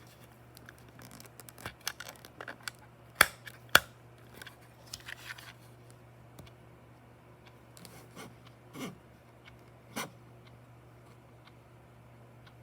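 Small plastic objects handled at close range: irregular sharp clicks and taps with a short scraping rustle, the loudest two clicks a few seconds in, then fewer knocks. This is typical of a cheap clear-plastic alarm clock and its packaging being handled.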